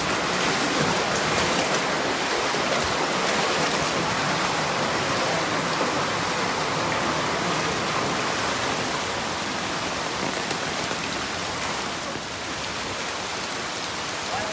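Steady rush of heavy rain and shallow floodwater running across the ground, easing slightly about twelve seconds in.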